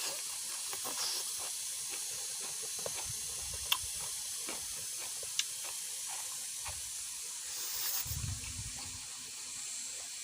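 Quiet mukbang eating sounds: scattered faint clicks of chewing and of hands and food on the plate, over a steady high hiss. A soft low rumble comes about eight seconds in.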